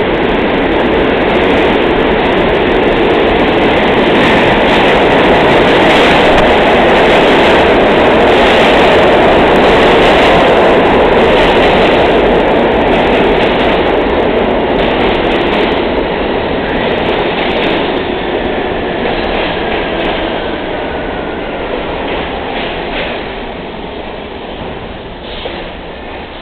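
R32 New York City subway train pulling into a station: a loud rush and rumble of steel wheels on rail with clicks over the rail joints. It is loudest in the first half, then grows quieter as the train brakes toward a stop, with a faint falling whine as it slows.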